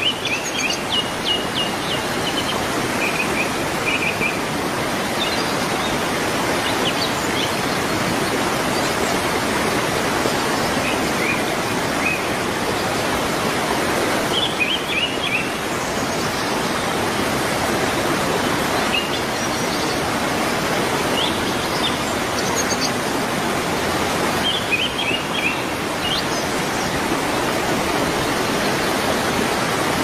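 Water from an artificial rock waterfall pouring and splashing steadily onto rocks and into a shallow pool, with short bursts of small birds chirping now and then over it.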